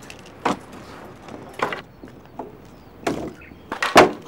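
A few separate knocks or thuds, unevenly spaced, the loudest near the end.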